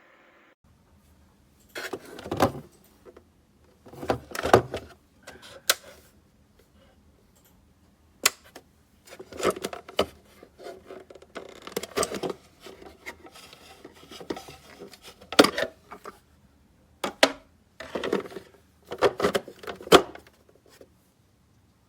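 Handling noises: a string of irregular clicks and knocks with rustling and scraping in between, as objects are picked up, moved and set down.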